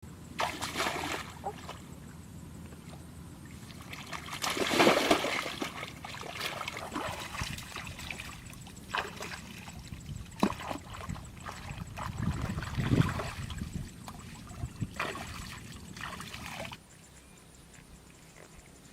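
Water splashing and trickling in irregular bursts, as when people wade and work in shallow water. It drops to a low hush near the end.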